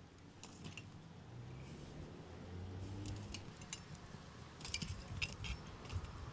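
Long metal tongs clinking as they are worked in a wood fire pit: a few light clicks early, then a quick cluster of clinks about four and a half seconds in.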